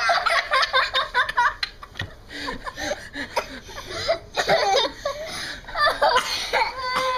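Young girls giggling and laughing, in quick bursts at first and then more scattered.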